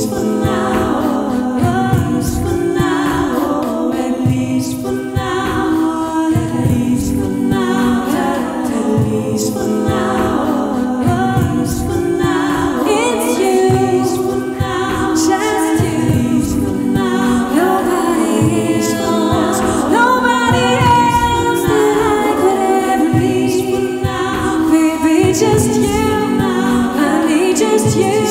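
A woman singing live into a microphone over layered a-cappella vocal backing, with a regular beat underneath.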